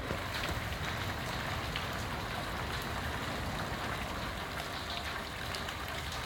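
Steady hurricane rain falling outside a storm-damaged house, an even hiss with a few scattered drop ticks.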